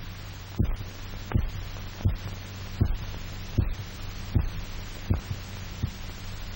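Heartbeat beating steadily, about eighty beats a minute, over a steady low hum. It is the revived dog's heart keeping up its own rhythm once the heart-lung machine is disconnected.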